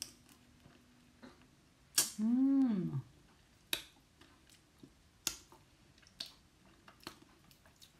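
Close-up eating sounds of crab being eaten by hand: a string of short, sharp wet clicks and smacks from lips and fingers as the meat is sucked off, with a hummed 'mmm' about two seconds in.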